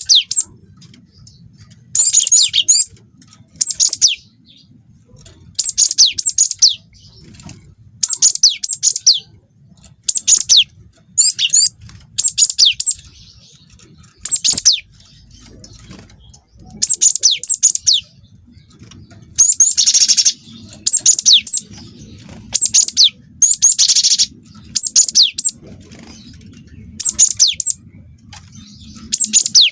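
Cinereous tit (gelatik batu) singing loudly and continuously: short bursts of quick, high, falling whistled notes, repeated every second or two.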